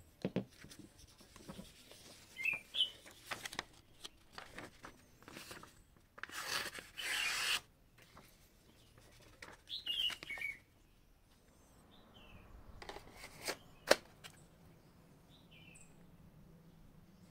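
Knives and a sheath being handled: rubbing, sliding and scattered clicks, with a longer scraping stretch about six to seven and a half seconds in and the loudest, sharp click about fourteen seconds in. Small birds chirp briefly several times.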